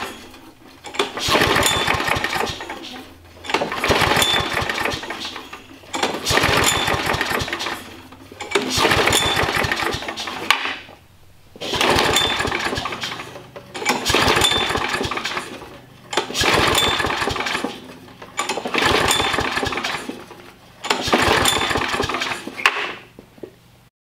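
Small single-cylinder engine of a Craftsman push mower cranked over by about ten pulls of the recoil starter cord, each pull lasting about two seconds with short pauses between. A compression gauge sits in the spark plug hole, so the engine turns over without firing: a compression test.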